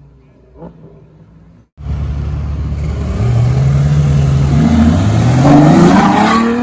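Ferrari GTC4Lusso V12 accelerating hard past close by, its revs climbing steadily and loudest near the end. Before it, for the first couple of seconds, a faint car engine is heard.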